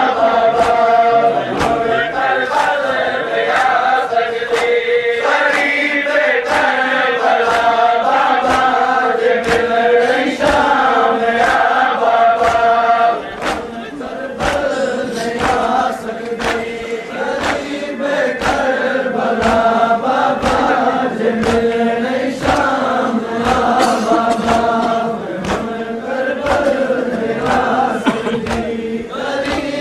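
Crowd of male mourners chanting a Seraiki noha in unison, with rhythmic chest-beating (matam) keeping a steady beat under the voices.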